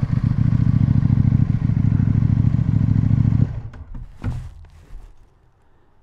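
CFMOTO Ibex 800T's parallel-twin engine, breathing through a Leo Vince slip-on exhaust with the baffle removed, running steadily and then cut off suddenly about three and a half seconds in. A knock or two follows after the engine stops.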